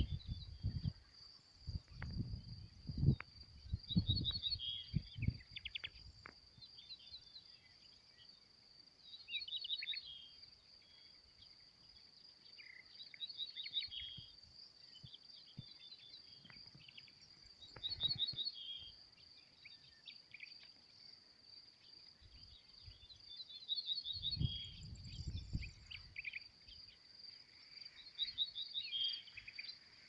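A grasshopper's steady high-pitched trill runs without a break while a songbird repeats a short chirping phrase every few seconds. Gusts of wind rumble on the microphone during the first few seconds and again about three quarters of the way through.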